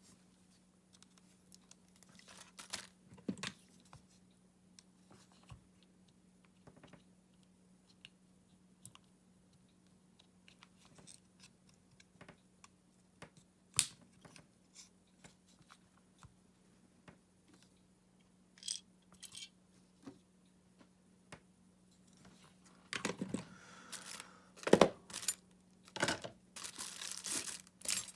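Small clicks, taps and scrapes of tools and small parts being handled while a cordless screwdriver's battery pack is worked on, sparse at first and busier for the last few seconds, over a faint steady hum.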